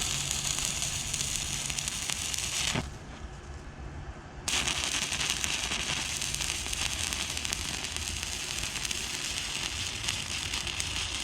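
MIG welder arc crackling and sizzling steadily while holes in an exhaust pipe are filled with weld. The arc stops about three seconds in and strikes again about a second and a half later for a second long bead.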